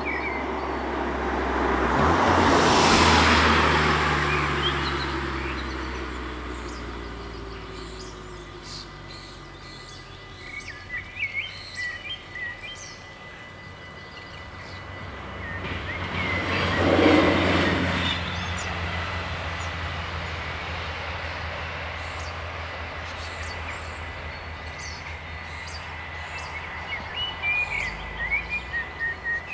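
A Syntus LINT 41 diesel railcar crossing over the level crossing and running away, its engine note falling slowly as it goes; a second rush of noise follows about halfway through. The crossing bells ring until near the end, and birds chirp.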